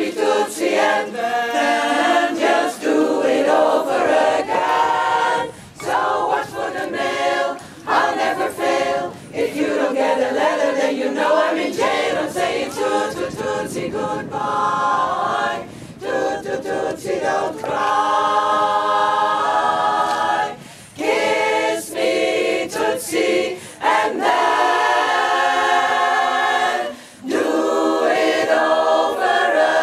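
Women's choir singing a cappella in several parts, with short breaks between phrases.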